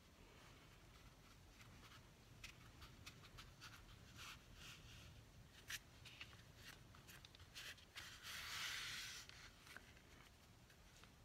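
Faint rubbing and small taps of hands pressing and smoothing a freshly glued fabric strip down a journal's inside spine, with one longer rub past the middle.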